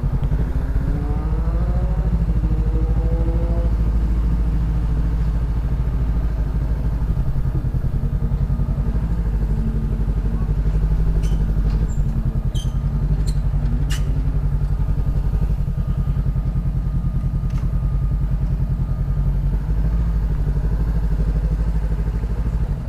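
Honda CB 500F parallel-twin engine through a Jeskap aftermarket exhaust, rising in pitch as it revs up over the first few seconds, then running at low, steady revs.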